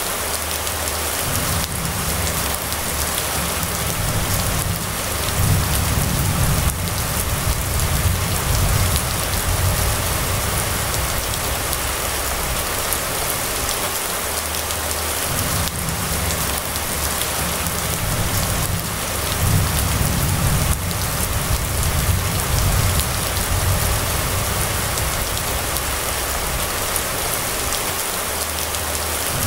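Steady rain falling on a wet street. A low rumble swells under it twice, each time for several seconds.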